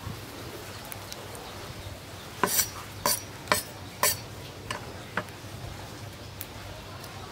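A run of about six sharp knocks and clicks, roughly two a second, as a cleaver and cut bell pepper pieces are handled in a plastic tray, the first four loudest.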